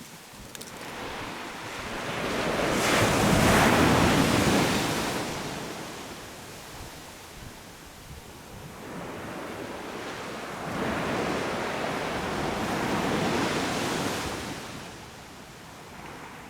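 Waves breaking on a beach: two swells of surf, the first and louder about three to five seconds in, the second around eleven to fourteen seconds, each rising and then washing away.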